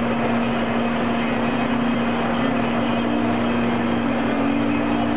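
Tractor unit's diesel engine running steadily as the truck moves slowly, heard from inside the cab as an even drone with a constant hum. There is one brief click about two seconds in.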